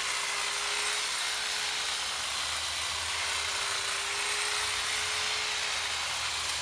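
Corded electric hedge trimmer running continuously, its reciprocating blades clipping through a dense shrub, with a steady motor hum and a constant hiss.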